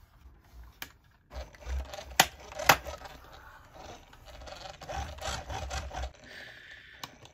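Small die-cast model cars pushed by hand across a desk, their wheels rolling and rubbing on the surface for several seconds. Two sharp clicks about half a second apart come partway through.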